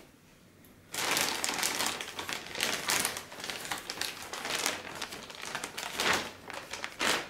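Clear plastic packaging bag crinkling and crackling as it is lifted and pulled up off the head unit. It starts about a second in, with the loudest crackles near the end.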